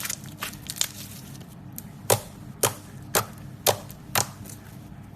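Slime being pressed and played with, giving sharp popping clicks: a few small crackles at first, then loud pops about two a second from about two seconds in, over a low steady hum.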